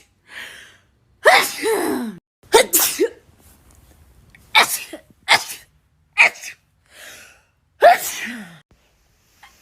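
A person sneezing hard and uncovered, about six strong sneezes in quick succession. Several end in a falling vocal note.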